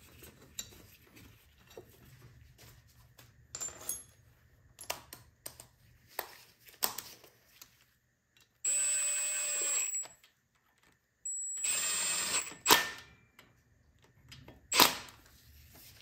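Small metal parts clinking and knocking as an engine's valve cover is fitted back on. Then a cordless power driver runs twice for about a second each, a steady high whine, driving in the cover's bolts, with a couple of sharp knocks after.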